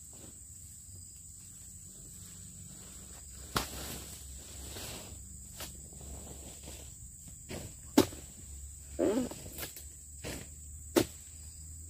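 Oil palm harvesting chisel (dodos) chopping into palm frond bases, giving three sharp strikes a few seconds apart with lighter knocks and brief rustling between. A steady high insect chirr runs underneath.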